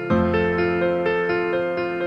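Background music: a keyboard melody of short, evenly paced notes over a held low chord, with a new chord coming in just after the start.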